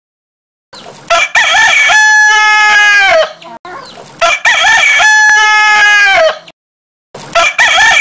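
Rooster crowing loudly three times, about three seconds apart. Each crow is a long call that ends in a falling note, and the third begins near the end.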